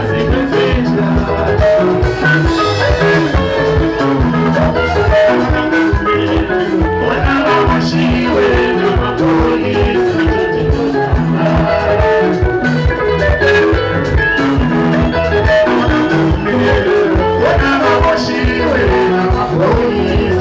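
Live Zimbabwean rumba band playing: interlocking electric guitar lines over bass and drum kit with a steady, fast beat, and singers on microphones.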